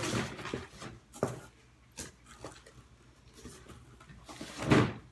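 Hands handling things at a table and in a cardboard box: rustling at first, then a few small sharp knocks, and a short loud rushing sound near the end.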